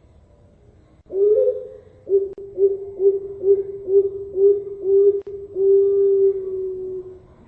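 Zebra dove (perkutut, Bangkok line) cooing: an opening coo, then a rapid run of about eight short staccato coos at roughly two a second, ending in one long drawn-out coo.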